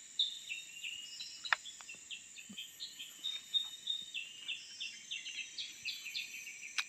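A bird singing a long run of short, downward-slurred whistled notes, about three or four a second, over a steady high insect drone. A single sharp click about a second and a half in.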